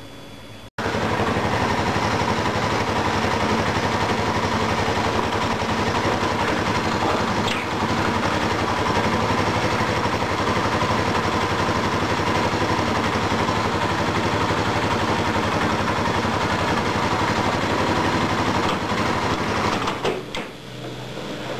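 Motorcycle engine idling steadily; the sound drops sharply near the end.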